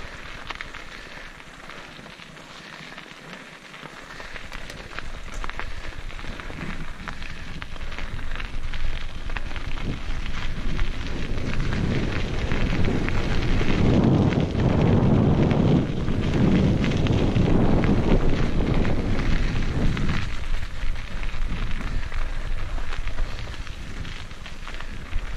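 Mountain bike tyres crunching and crackling over a loose gravel trail during a fast descent, with scattered sharp ticks from stones. Wind rush on the microphone builds with speed, is strongest in the middle stretch and eases near the end.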